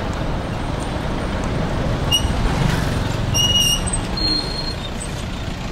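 Steady low rumble of wind and motion noise on the microphone while moving along a street, with a few short high-pitched beeps about two and three and a half seconds in.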